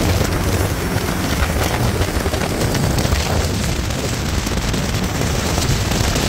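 Turbocharged longtail boat engine running loud and steady at speed, with wind on the microphone.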